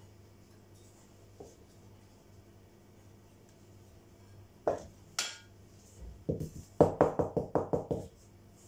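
Two sharp plastic clicks about halfway through, then a quick run of about ten knocks near the end: a plastic flour container being opened and tapped against the mixing bowl to shake out the flour.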